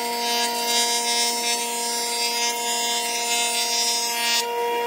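Jointer running, its spinning cutterhead planing the face of a wooden board pushed across the table: a steady motor hum under a high, rushing cutting noise. The cutting noise drops away about four and a half seconds in as the cut ends, leaving the machine running.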